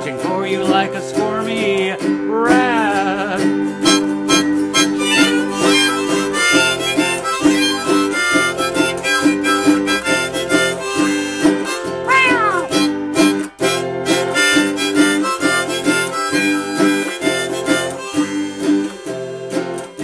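Harmonica in a neck rack played over strummed autoharp chords, a folk tune with a steady strumming rhythm. A wavering note comes about two seconds in, and a quick bent note rises and falls around the middle.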